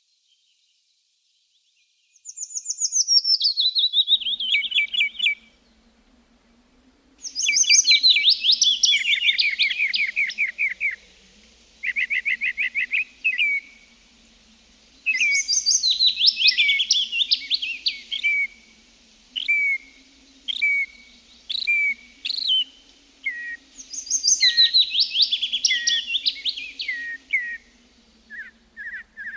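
Songbird song: repeated phrases of fast, high trills that slide down in pitch, each a few seconds long, beginning about two seconds in, with shorter chirps between them. A faint low steady hum lies underneath.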